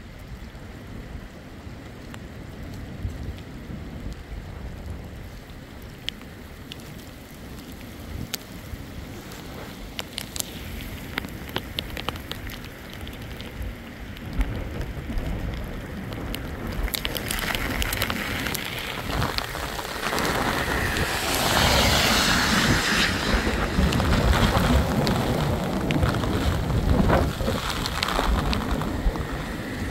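Rain falling, with scattered drops ticking over a low rumble at first; about halfway through the rain grows into a heavy downpour that stays loud until near the end.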